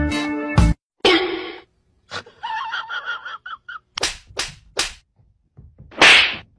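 Two tabby cats fighting: three sharp slap-like hits of paw swipes about four seconds in, then a loud hiss about six seconds in.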